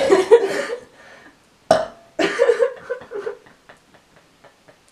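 A woman burping loudly, a first burp at the very start and a second about two seconds later.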